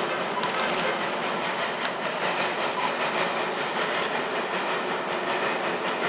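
Steam locomotive running under power, a steady noisy exhaust with a few short sharp knocks on top.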